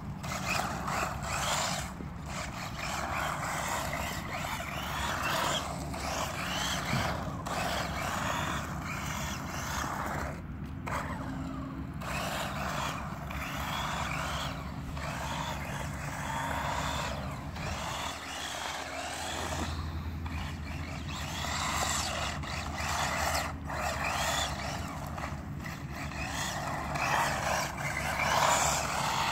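Electric 4x4 WLtoys RC buggy driven in repeated throttle bursts on asphalt: the electric motor and drivetrain whir and the tyres scrub as it slides through turns, every second or two, with short pauses between.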